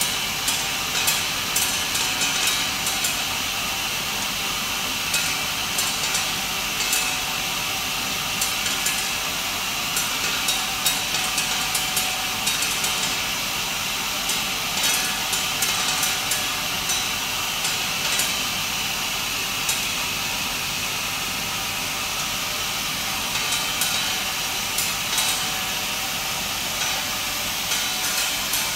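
Accura TCI tablet-processing machine running on big flat tablets: a steady hiss with frequent, irregular sharp clicks throughout.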